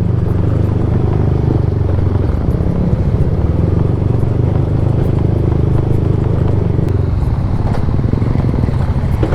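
Yamaha Aerox scooter engine running steadily while riding, with wind and road noise on the microphone. The low engine note changes about seven seconds in.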